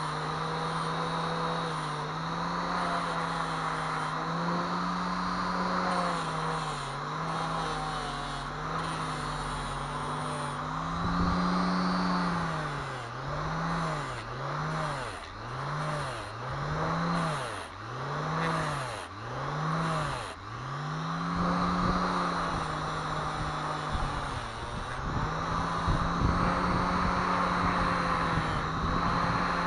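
An electric power tool's motor running with a steady hum. Its pitch sags and recovers over and over, in a run of about nine dips roughly a second apart through the middle, as the tool is loaded and eased off.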